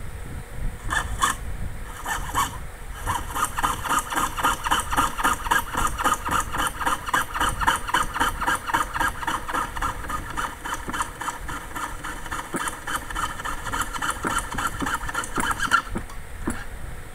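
Jeweller's saw cutting through metal plate by hand: a couple of short strokes, then a fast, steady run of rasping strokes at about five a second, which stops about a second before the end.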